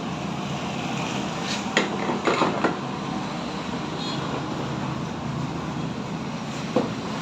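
Small metal parts or tools clinking a few times, a cluster of clinks a little after two seconds and a single one near the end, over a steady background hum.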